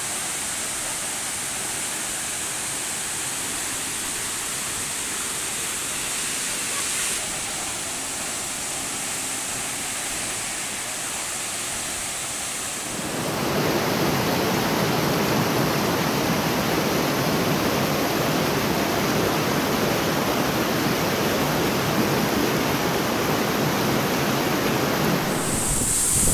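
A waterfall and its pool of water: a steady rush of falling and churning water. About halfway through it turns suddenly louder and fuller.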